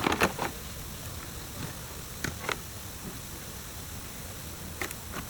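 A few short, light clicks and knocks, a quick cluster at the start, two more about two seconds in and two near the end, over a steady low hiss.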